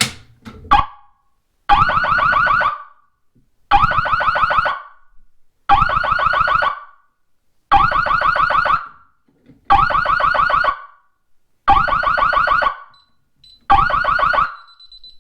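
A few clicks as the alarm is triggered, then the siren of a home fire alarm system sounding in one-second blasts about every two seconds, seven in all: the system in alarm during a test.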